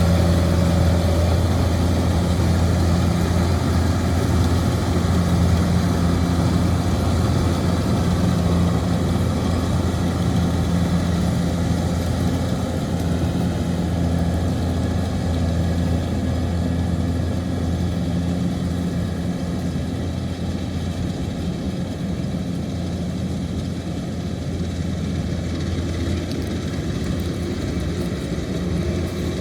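Kubota DC-105X combine harvester's diesel engine running steadily while cutting rice, a deep even drone that grows a little quieter in the second half.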